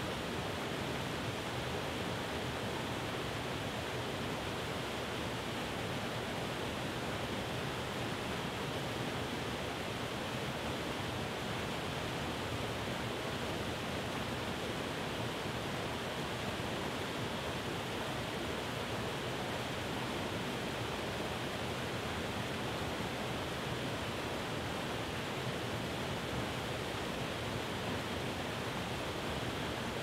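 Waterfall cascading over rock: a steady, unbroken rush of falling water.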